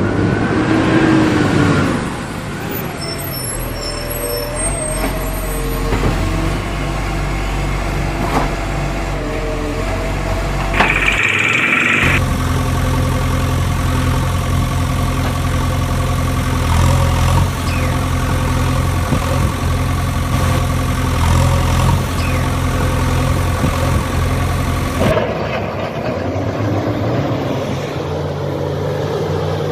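Large truck engine running steadily, its note shifting a few times, with a brief hiss about eleven seconds in.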